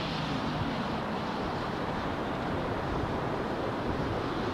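Steady roar of a Boeing 757-200's Rolls-Royce RB211 jet engines as the airliner rolls out and slows down the runway after touchdown.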